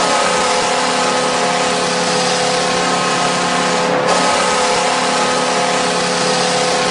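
Buffalo Sabres arena goal horn blowing one long, steady, loud blast over an even wash of crowd noise.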